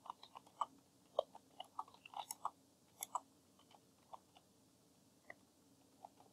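Computer keyboard typing: a quick, uneven run of faint key clicks that thins out after about three seconds.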